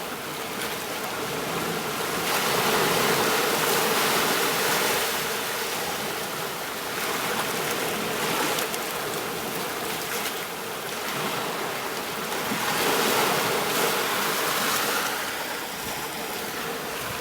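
Ocean surf washing onto a beach, a steady hiss of water that swells and eases as each wave comes in, every four to five seconds.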